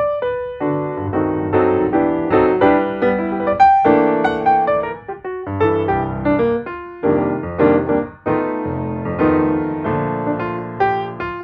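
Background music: a piano or electric piano playing a melody with chords, notes struck in quick succession and fading.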